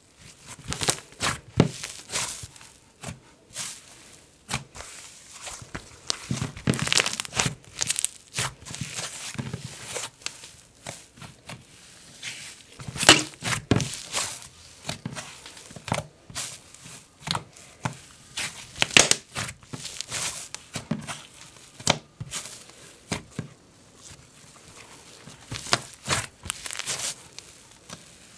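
Hands squishing, pressing and stretching thick white slime: irregular sticky clicks, pops and tearing crackles, with a few louder pops in the middle.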